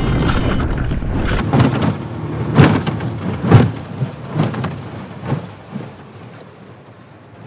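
Aluminium jon boat running with its Mercury outboard and wind noise. About a second and a half in, the motor rumble drops away, and water slaps against the aluminium hull in sharp knocks about once a second, growing fainter.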